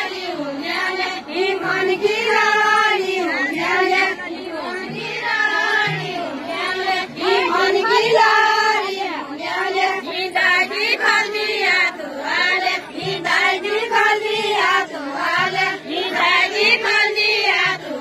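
A group of women singing a Far-Western Nepali folk song together, a deuda-style chant of short repeated phrases, with a few low thuds under it.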